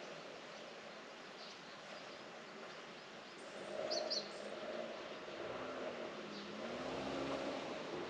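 Steady outdoor background hiss with a few short high bird chirps, a quick pair about halfway through. In the second half a low engine hum grows louder, its pitch wavering up and down, as of a vehicle passing.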